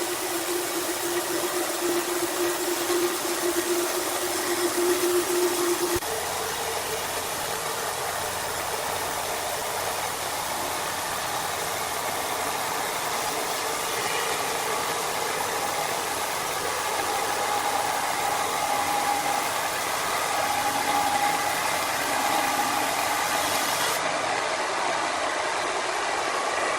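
Wood-processing machinery running steadily, a loud mechanical din with a held hum, changing abruptly about six seconds in and again near the end.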